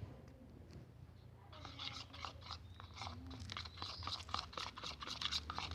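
Homemade glitter slime being worked by hand, giving a rapid, irregular crackling and crunching that starts about a second and a half in.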